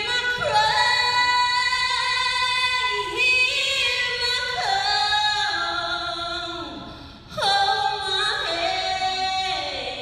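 A woman singing solo into a hand microphone, long held notes sliding between pitches, with a short breath about seven seconds in before the next phrase.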